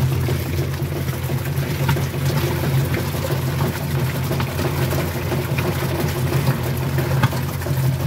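Kenmore top-loading washing machine running with water churning and splashing in the tub, over a steady low hum.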